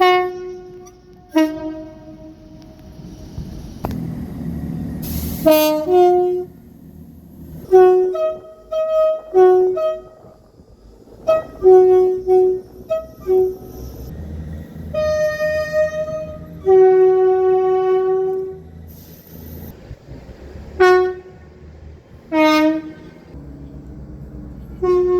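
Two-tone train horn sounded in many short blasts, its high and low notes alternating, with one longer low note about seventeen seconds in. A low train rumble runs underneath, with a couple of brief hisses.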